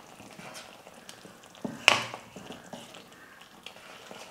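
Wooden spatula stirring semolina into simmering water and vegetables in a kadai, mixing it in so no lumps form. Soft scraping throughout, with one sharper knock about two seconds in.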